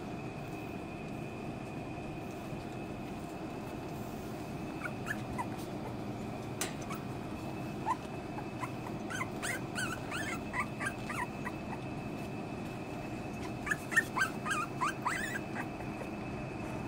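Young puppies whimpering and yipping in short, high cries: a few scattered at first, then two quick flurries of cries about nine and fourteen seconds in, over a steady low background hum.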